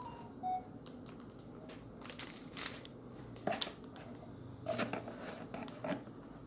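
Packaging of a keyboard box being handled during unboxing: scattered crinkling, rustling and light clicks and knocks of cardboard and plastic.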